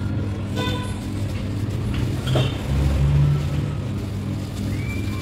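Steady low background hum and rumble, swelling louder for about a second near the middle.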